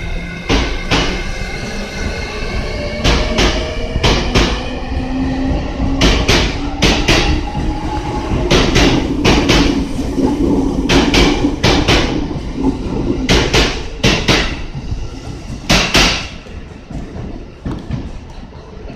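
E653 series electric multiple unit pulling out and gathering speed past the platform: its wheels click over the rail joints in quick pairs, one pair per bogie, over a motor whine that rises in pitch as it accelerates. The sound fades over the last few seconds as the train draws away.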